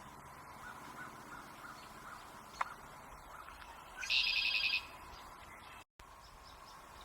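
A bird gives one loud, harsh, rasping call about four seconds in, lasting under a second. Fainter short bird notes come before it.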